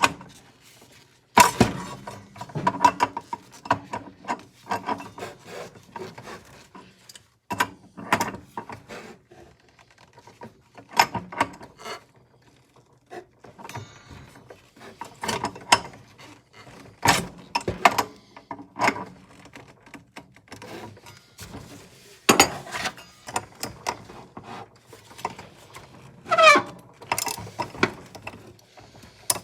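Hand tools working the miter saw's reverse-threaded blade arbor bolt, which is stuck: irregular metal clicks, knocks and scraping, with a brief squeak near the end.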